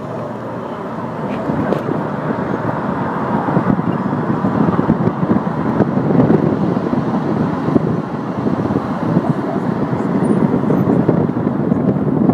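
A car driving along a busy city street, heard from inside the car: steady road and engine noise with passing traffic, growing a little louder about a second in.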